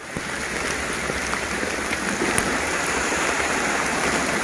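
Steady hiss of monsoon rain falling, with a few faint drop ticks and a low rumble of wind on the microphone.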